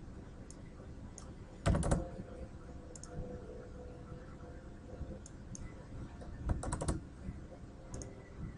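Computer keyboard keys tapped in two quick bursts, about two seconds in and again about five seconds later, with a few single faint clicks between, over a low steady background hum.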